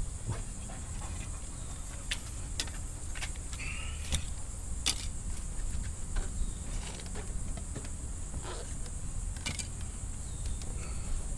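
Scattered clicks and small plastic snaps and knocks as broken pieces of a Corvette heads-up display bezel are picked and pried out of the dashboard.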